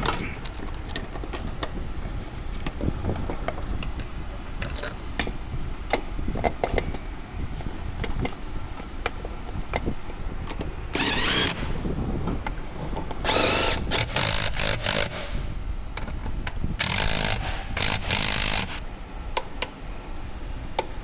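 A hand-held power tool running in several short bursts, in three groups, with clicks and clanks of tools and parts between them.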